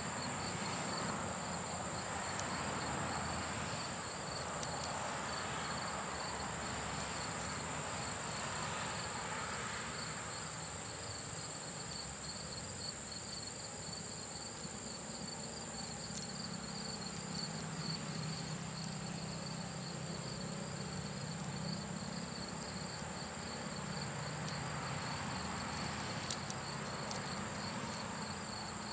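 Insects chirping steadily: a high continuous trill with a rapid pulsing chirp beneath it, and a single small click near the end.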